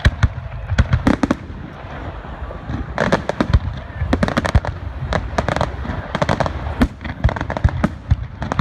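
Fireworks going off in quick, irregular succession: many sharp bangs and crackles, thickest about three to six seconds in, over a low rumble.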